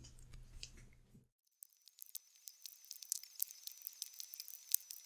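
Soldering wires onto a small key-switch module: faint, irregular crackles and small clicks of the iron and solder at the joints, starting about a second and a half in, with a thin steady high whine behind them.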